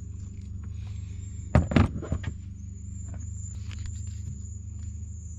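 Handling noise from splicing wires into butt connectors: a quick cluster of several sharp knocks and clatter about a second and a half in, with faint ticks, over a steady low hum.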